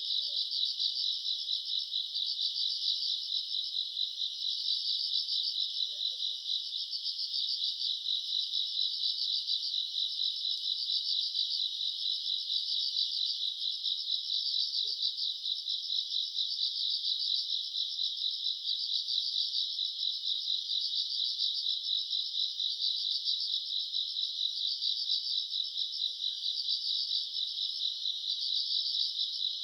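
Summer-night chorus of crickets and other grass insects chirping without a break: a dense, steady trill made of fine rapid pulses.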